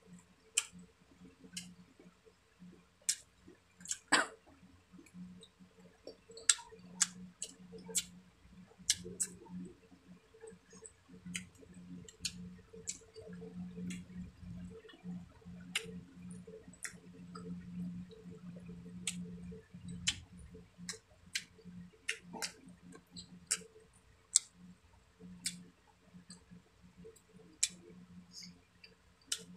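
Close-miked chewing of grilled fish and rice, with frequent irregular wet mouth clicks and lip smacks.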